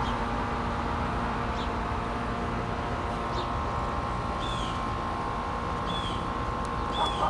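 A steady droning hum with a few held tones runs under a bird chirping: about five short, high chirps spaced a second or so apart.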